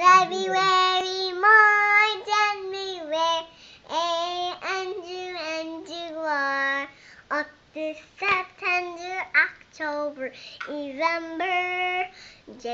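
A young girl singing a tune alone, unaccompanied, in a string of held notes with short breaks between phrases.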